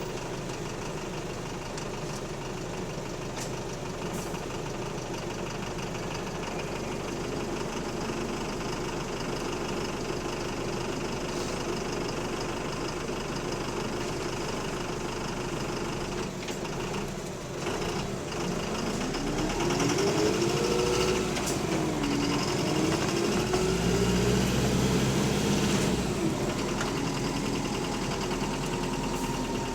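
Diesel bus engine running with a rod knock. About two-thirds of the way through it grows louder, and its note rises and falls as the engine takes up speed.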